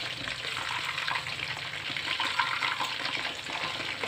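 Crispy-battered chicken pieces deep-frying in hot oil in a wok, a steady dense sizzle and crackle, as a metal spatula stirs them through the oil.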